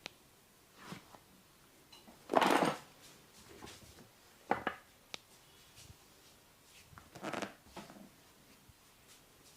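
Massage sounds of hands working on a person: a few separate short rubbing or patting sounds, the loudest about two and a half seconds in, with a sharp click near the middle.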